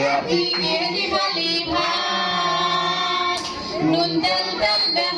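Children singing a song together with a woman's voice among them, several notes held long, with a short break about three and a half seconds in.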